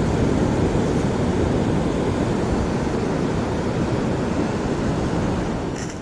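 Steady rushing noise of ocean surf mixed with wind on the microphone.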